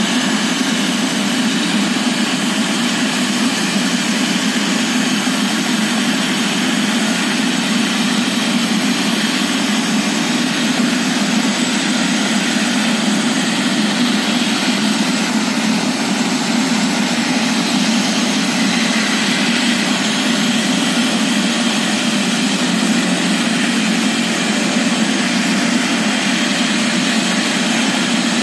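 Turbine helicopter idling on the ground, a steady engine roar.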